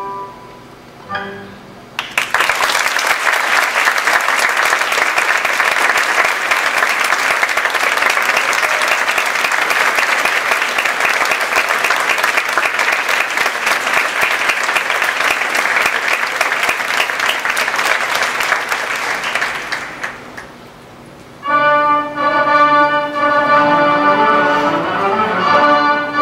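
Theatre audience applauding steadily for about eighteen seconds after the orchestra's closing chord dies away. Near the end the applause fades and the orchestra starts playing again.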